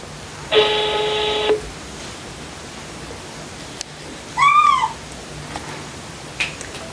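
Mobile phone's loudspeaker sounding one ringback tone about a second long as an outgoing call rings. A short tone that rises and falls follows a few seconds later.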